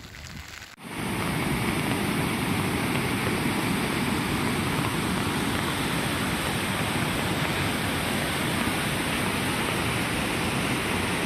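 Steady rushing of a swollen river in flood, fast water running over submerged ground. It starts suddenly about a second in and then holds even.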